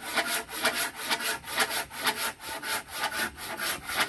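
Handsaw cutting through a wooden board, in steady back-and-forth strokes about three a second.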